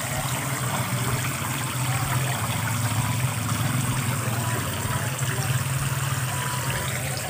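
Water spraying from a hose nozzle and splashing steadily into a fish tank, with a steady low hum underneath.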